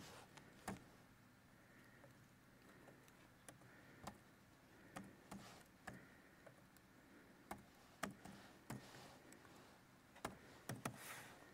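Near silence, broken by scattered faint clicks and ticks at irregular intervals.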